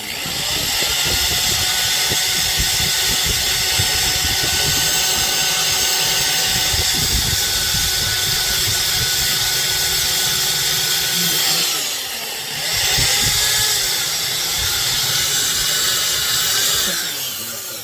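High-speed power tool motor running steadily with a whine. About twelve seconds in the pitch dips and wavers briefly, then steadies again, and the tool winds down near the end.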